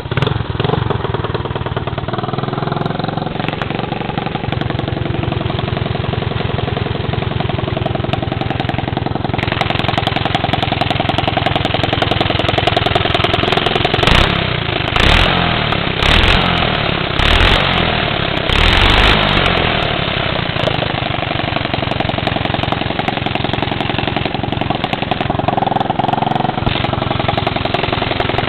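Vehicle engine with a rumbling exhaust, idling steadily, then revved in about five short throttle blips in the middle before settling back to idle.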